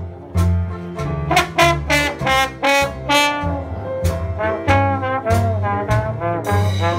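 Traditional New Orleans jazz band playing an instrumental chorus: brass horns, trombone and cornet, lead the melody over a rhythm section with walking bass notes.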